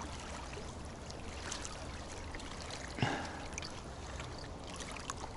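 Steady wind noise over the microphone with water lapping, and one short soft sound about three seconds in.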